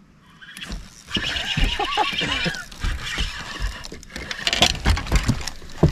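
Commotion of a hooked bass being fought and landed beside a boat: water splashing and thumps on the deck, with a short wavering cry about a second and a half in.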